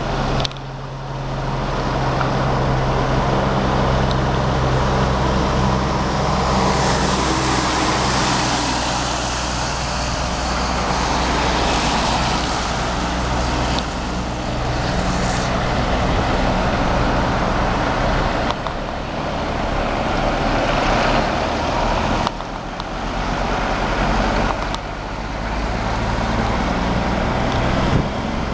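Cummins diesel engine of a vintage Peterbilt logging truck running, a steady deep drone with a broad rush of noise over it. The level dips briefly a few times in the last third.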